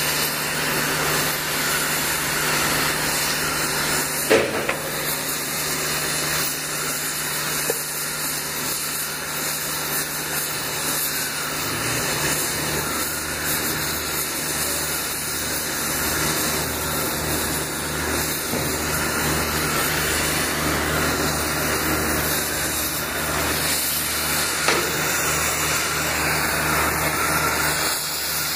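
Track-mounted oxy-fuel cutting torch cutting through 1-inch A36 steel plate: the steady hiss and rush of the cutting jet, with a low steady hum underneath. A sharp pop about four seconds in.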